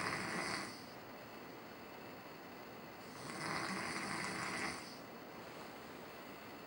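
A sleeping man snoring: one snore dies away just after the start, and another comes about three seconds in and lasts about a second and a half, with quieter stretches between.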